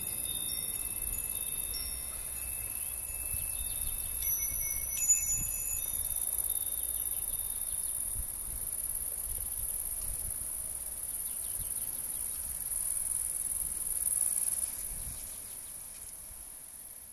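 A steady high-pitched chorus of insects, with the last tones of a wind chime ringing out over the first few seconds. The sound fades away near the end.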